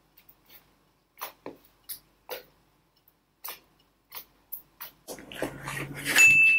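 Glittery slime being squeezed and poked by fingers, giving about eight separate short wet pops and clicks. Near the end a louder rustling sets in, and a single high ringing tone starts just before the end.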